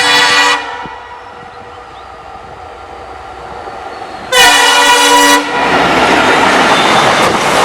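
WDG4 diesel locomotive's air horn sounding two short blasts about four seconds apart, each a chord of steady tones. The loud, steady noise of the train running past follows.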